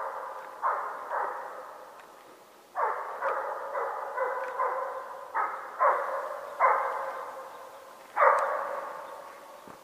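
An Estonian hound giving tongue on a hare's trail: about a dozen sharp barks in uneven runs, each trailing off in echo, with a gap of more than a second after the first two.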